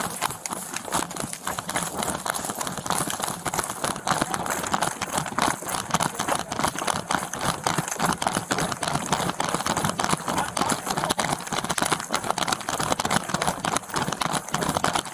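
Fast running footsteps on a hard floor, picked up by a police body camera that jolts with every stride.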